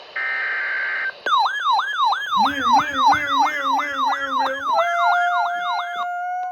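An EAS SAME header data burst, a buzzy digital tone lasting about a second, followed by an electronic siren-style alert alarm that rises and falls quickly, about three times a second. A steady alert tone joins near the end and holds after the siren tone stops.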